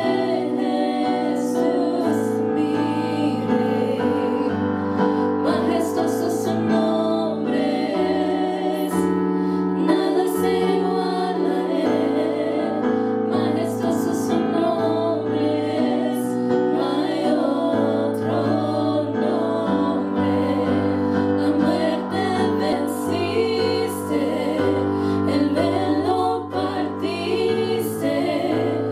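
Three women singing a gospel song together in harmony into microphones, accompanied by held keyboard chords.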